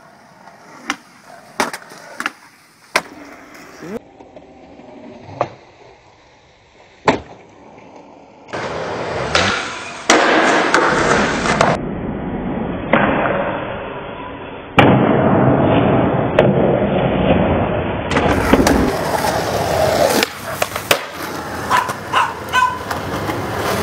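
Skateboard sounds across several cut-together clips. First come sharp, separate clacks of a board popping and landing, then a long stretch of loud continuous rolling noise from wheels on concrete, broken by more hard board impacts.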